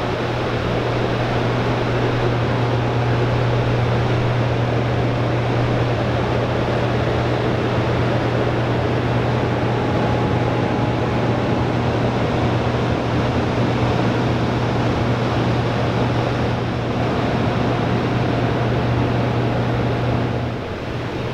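Hydroelectric generating units in a powerhouse hall running: a steady low electrical hum under an even machinery rush, which drops away near the end.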